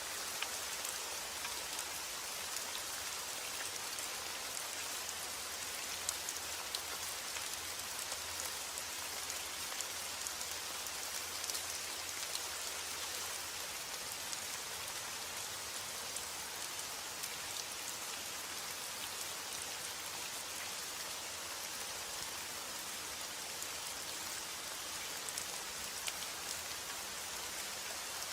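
Steady rain falling, a continuous hiss dotted with the small ticks of individual drops hitting a surface.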